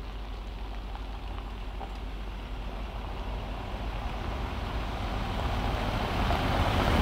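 Toyota Hilux pickup with its 2.4-litre diesel driving, a steady engine and road noise that grows steadily louder through the second half.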